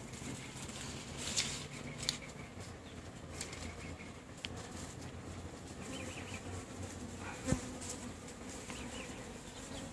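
Honeybees buzzing around an open beehive, a steady low hum, with a few sharp clicks or knocks, the loudest about three-quarters of the way through.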